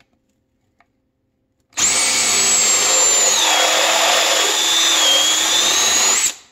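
Cordless drill spinning a spin swage bit into the end of half-inch soft copper tubing, swaging it out for a joint. The drill starts with a high whine about two seconds in. The whine drops in pitch partway through, then rises again just before the drill stops after about four and a half seconds.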